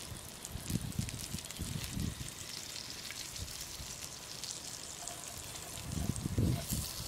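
Cow lung and its juices sizzling on a hot pan with a steady fine crackle. Low rustles and knocks of handling in grass and leaves come now and then, loudest about six seconds in.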